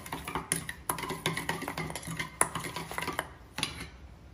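Metal spoon stirring a wet oil-and-garlic marinade in a stainless steel mixing bowl: quick, uneven clinks and scrapes of spoon against the bowl, dying away near the end.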